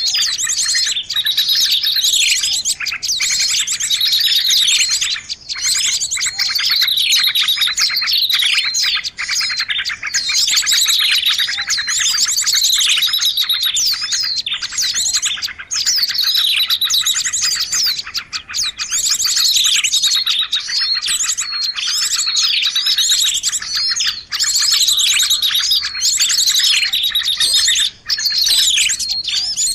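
Bird-lure recording for small birds: many small birds chirping and trilling at once, a dense, unbroken chatter of high calls with repeated downward-sweeping notes.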